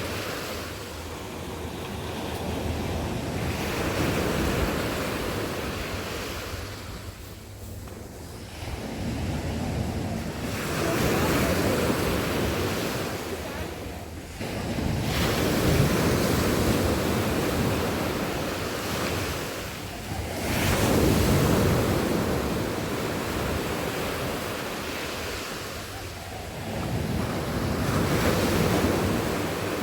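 Sea waves breaking and washing up on a beach, swelling and falling back about every five to seven seconds.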